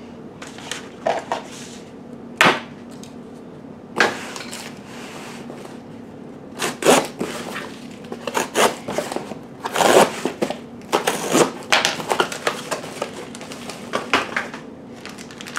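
Small cardboard box being opened by hand: packing tape ripped, flaps pulled open and plastic packing rustled and crinkled, a run of irregular crackles and tearing sounds, the loudest about a third of the way in and near the middle.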